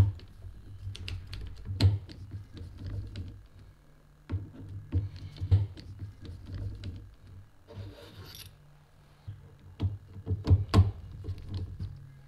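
Hex bit driver unscrewing the steel scope-ring cap screws, with the ring caps and aligning guides being lifted off. Scattered small metal clicks and scrapes, with a few sharper clicks about two seconds in, around five seconds and near eleven seconds.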